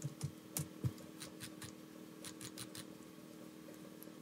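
Faint clicking of a computer keyboard and mouse: about a dozen short, sharp clicks in the first three seconds, then quiet room tone.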